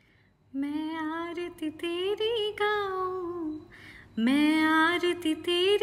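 A woman singing a Hindi Krishna bhajan solo and unaccompanied, starting about half a second in with long held, gliding notes, and taking a breath a little past halfway.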